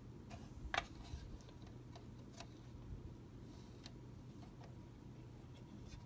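Faint, irregular clicks and light taps of a plastic fire alarm unit being handled, the loudest just under a second in, over a low steady hum.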